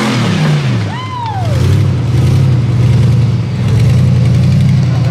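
Rock crawler's engine revving up and down as it works over a rock ledge, then running at a steady throttle as it crawls on.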